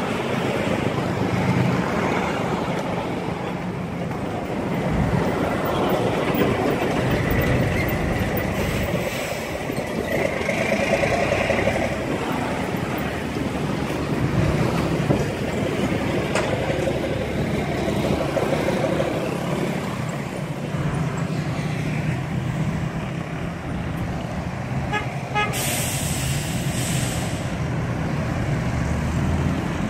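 Motorcycle engine running under way with road and wind noise, traffic around, and a vehicle horn sounding briefly. A short burst of hiss comes near the end.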